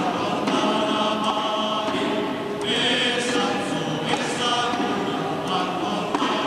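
A group of voices singing or chanting together in long held notes, with a few sharp clacks from the dancers' sticks.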